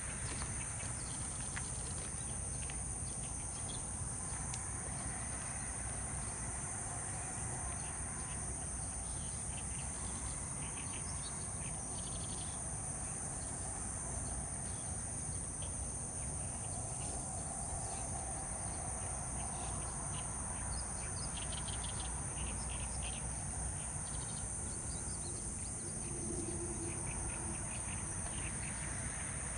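Steady high-pitched insect chorus over a low background rumble, with short chirps now and then.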